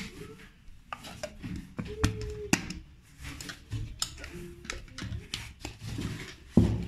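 Stainless steel mixer-grinder jars and their clear lids being handled: irregular clicks and taps as a lid is fitted onto a small jar, with a louder knock near the end.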